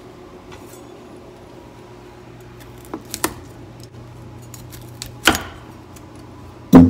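Kitchen knife cutting broccoli florets from the head on a wooden cutting board: a few separate sharp cuts and snaps, a pair about three seconds in and another about five seconds in, then a louder, heavier knock on the board near the end. A steady low hum runs underneath.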